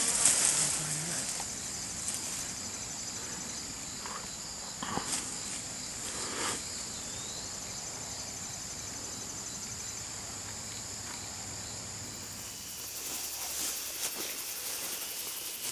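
Steady high-pitched chorus of field insects with a faint pulsing trill, and two soft knocks about five and six and a half seconds in. About twelve seconds in it changes abruptly to a brighter, hissier insect chorus.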